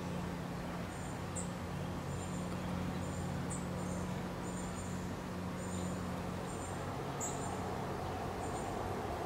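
Short, very high-pitched double chirps from a small creature, repeating about once a second over a steady low hum.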